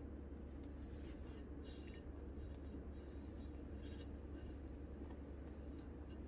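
Faint soft scraping of a metal palette knife spreading whipped cream across a chocolate sponge cake layer, in short strokes about two seconds in and again about four seconds in, over a steady low hum.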